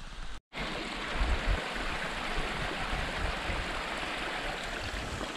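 A mountain stream running over rocks as a steady, even rush of water, after a brief cut-out about half a second in.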